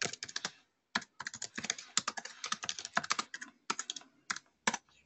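Rapid typing on a computer keyboard, quick runs of keystrokes with a short pause about a second in, thinning to a few last taps near the end: a shell command being typed.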